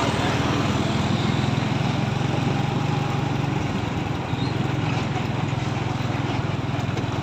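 Cargo truck's engine running steadily under way, a fast, even pulsing drone with a brief slight dip a little past four seconds in.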